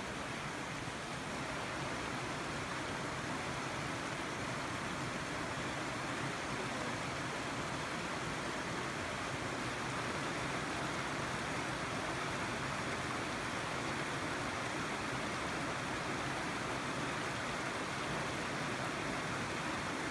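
Small mountain creek running over rocks: a steady, even rush of water.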